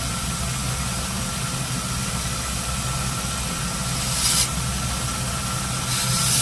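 A motor running steadily, a low hum with a faint constant whine over it. Two short bursts of hiss come through, about four seconds in and again near the end.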